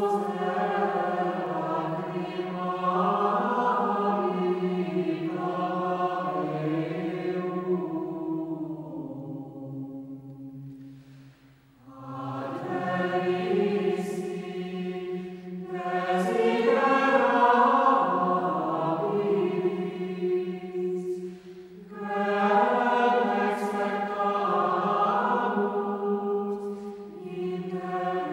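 A choir singing a slow chant in long held phrases, breaking off briefly about halfway through before taking up the next phrase.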